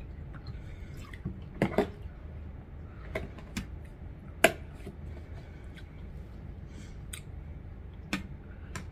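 Scattered sharp clicks and knocks from handling a glass juice bottle and its plastic screw cap as it is capped, and from a wine glass being picked up; the sharpest click comes about halfway through, over a steady low hum.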